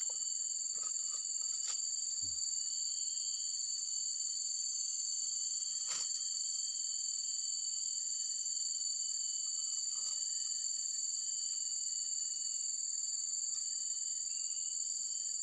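A steady, high-pitched insect chorus drones on without a break, with a faint click about six seconds in.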